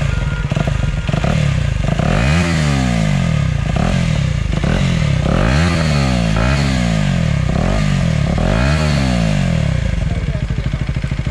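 KTM Duke's single-cylinder engine running and revved in several short throttle blips, each rev climbing and dropping quickly, between idle spells.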